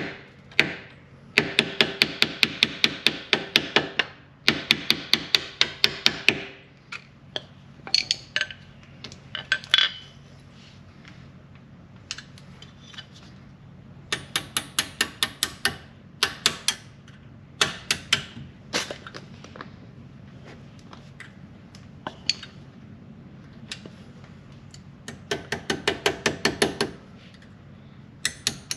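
Claw hammer tapping an Allen key used as a punch to drive the pad retaining pin out of a Dodge Charger Hellcat's four-piston rear brake caliper. The taps come in several quick runs of about six or seven strikes a second, each with a short metallic ring, with pauses and odd single taps between.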